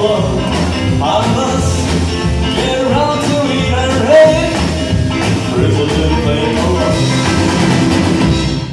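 Live rock and roll band playing: electric guitar over an upright double bass, with a steady low bass line under it.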